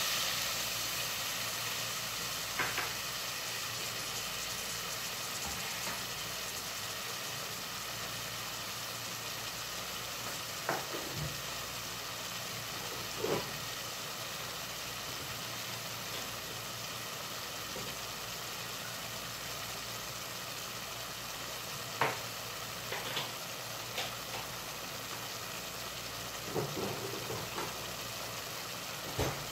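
Chicken hearts, onion and garlic cooking in soy sauce and vinegar in an aluminium pot: a steady sizzle with a few sharp pops scattered through, as the vinegar cooks off.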